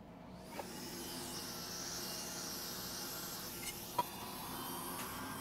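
Hot air rework gun starting up about half a second in and then blowing with a steady hiss. There is a sharp click about four seconds in.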